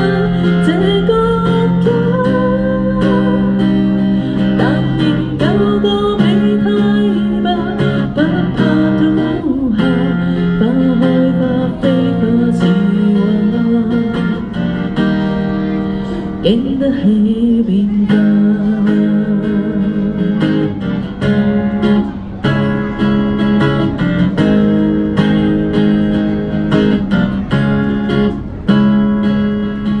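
A woman singing with a strummed acoustic guitar. After about seventeen seconds the voice drops out and the guitar strums on alone.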